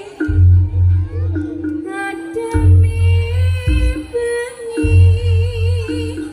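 East Javanese jaranan music played loud: a wavering, vibrato-laden melody over heavy low drum beats that come in clusters with short breaks between them.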